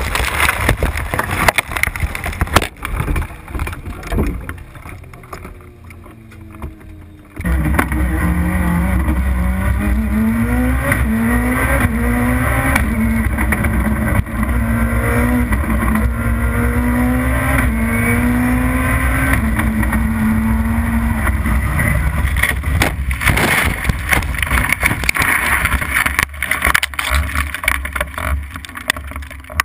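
Hill-climb race car engine pulling hard, its note climbing and then dropping again through repeated upshifts, heard from the car itself. Before and after it comes loud crashing noise with heavy impacts as the car tumbles off the road.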